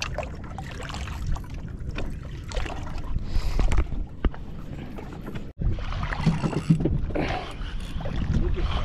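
Steady low rumble of wind and water on a small fishing boat at sea, with scattered knocks from handling on deck. The sound cuts out for an instant about five and a half seconds in.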